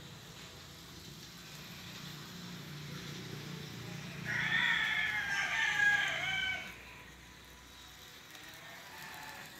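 A rooster crows once, starting about four seconds in and lasting a little over two seconds, over a faint low hum.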